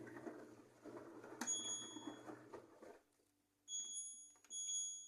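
High electronic beeps, a single tone sounding once about one and a half seconds in and then several more times near the end, over a faint low hum. The sound briefly cuts out to silence just before the later beeps.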